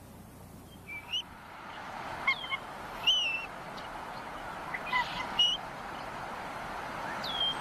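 Bald eagle calling in short, high chirps, about half a dozen spread across a few seconds, over a background hiss that grows louder.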